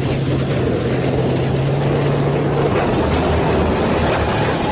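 Military tank engine sound: a loud, steady heavy-engine rumble with a low hum that drops out a little under three seconds in.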